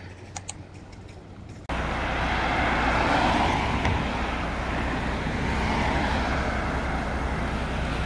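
Road traffic on a highway: a steady rush of passing-car noise that starts abruptly about a second and a half in, after a quieter stretch with a few faint clicks.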